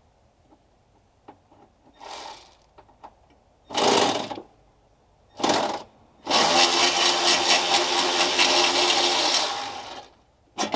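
Handheld power tool on a 1/2-inch (13 mm) socket backing out a battery-tray bolt: a few short bursts, then a steady run of about four seconds, and one more short burst near the end.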